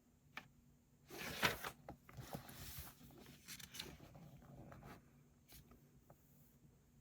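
Close rustling and scraping with a few sharp ticks, lasting about four seconds after a single light click.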